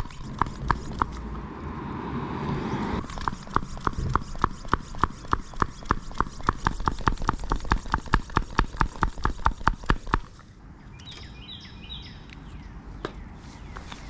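Floor pump being worked hard and fast to inflate a road bike tyre to high pressure, a sharp clack on each stroke at about three to four a second. There is a short break after about a second, and the pumping stops abruptly about ten seconds in.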